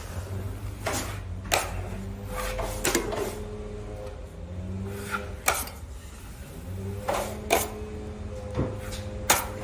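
Metal drywall knife clicking and scraping against a mud pan and the wall while joint compound is spread over a seam, with several sharp clinks spread through, over a steady low hum.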